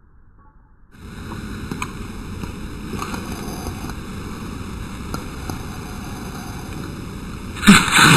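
Steady wind-like noise, then near the end one loud, sudden dog sneeze.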